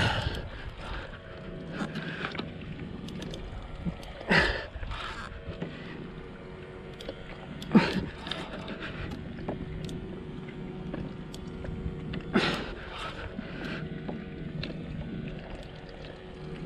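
Large spinning reel being cranked in spells against the pull of a hooked yellowfin tuna, with water lapping against a plastic kayak. Three short loud sounds stand out, about four, eight and twelve seconds in.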